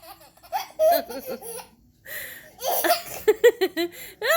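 A baby laughing hard in repeated bursts of belly laughter, with a sharp breathy gasp about two seconds in.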